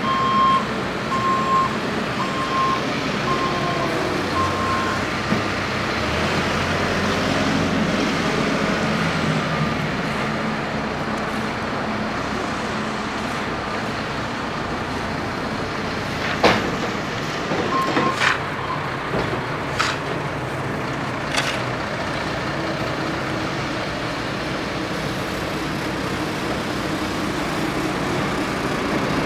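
New Holland backhoe loader's diesel engine running steadily while working, with a string of evenly spaced reversing beeps for about the first five seconds. A few sharp clanks come between about 16 and 21 seconds in.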